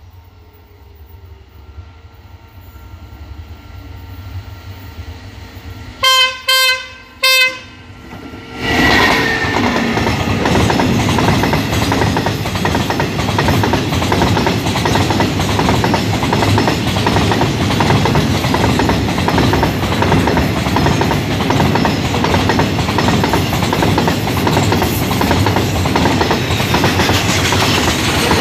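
SRT crude-oil tank train hauled by a CSR U20 diesel locomotive: its rumble grows as it approaches, the locomotive sounds its horn in two short blasts about six seconds in, then from about nine seconds the locomotive and a long line of tank wagons pass close by, wheels clacking over the rail joints.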